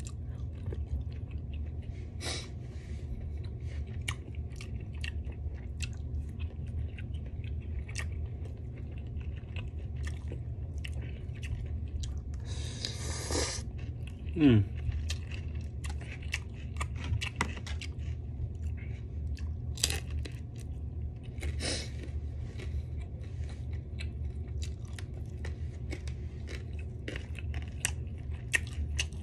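A person chewing and biting a mouthful of food, with many small wet mouth clicks, over a steady low hum. About halfway through, a short rushing breath-like noise and then a brief falling vocal sound.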